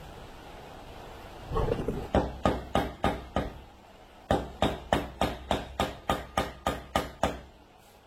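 Hammer tapping a part into a steering rack during a rebuild: sharp metallic strikes at about three a second, in two runs with a short pause near the middle.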